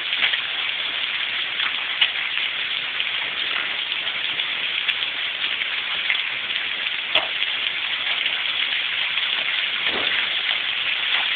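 Heavy rain and hail falling: a dense, steady hiss with a few sharper knocks of hailstones striking, about three in all.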